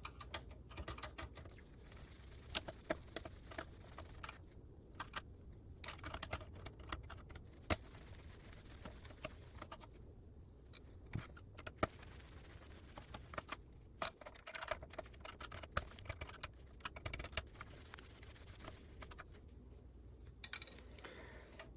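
Faint, scattered clicks and light metallic rattles of hand tools and small parts being handled while an LCD monitor is taken apart.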